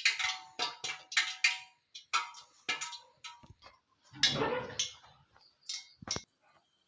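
A small vessel clicking and knocking against a rolling board as it presses rounds out of rolled puri dough, in an irregular series of sharp taps, some ringing briefly, with a heavier knock about four seconds in.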